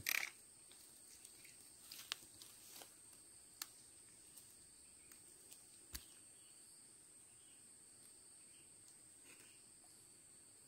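Near silence with a faint, steady, high-pitched insect drone, broken by a few soft clicks.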